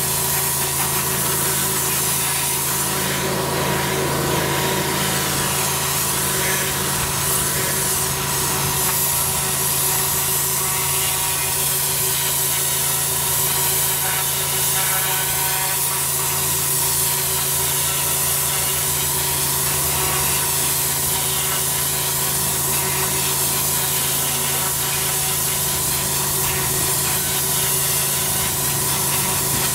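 Pressure washer's twin-headed turbo lance blasting block paving: a steady hiss of the water jets on the blocks, swelling and fading slowly as the lance sweeps, over the constant hum of the machine.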